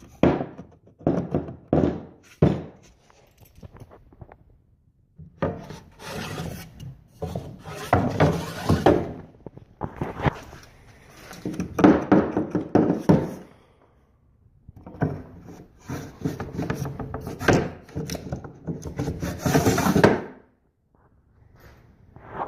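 Wood being handled and rubbed: a few knocks in the first seconds, then three long stretches of scraping and rubbing with short pauses between.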